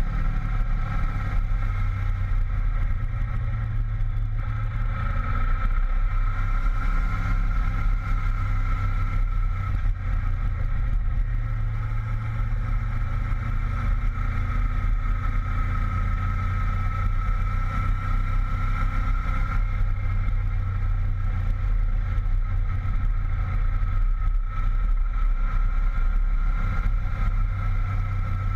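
Honda VFR800 V-Tec's V4 engine running steadily under way, heard from the bike with wind and road noise; the engine note rises and falls a little several times.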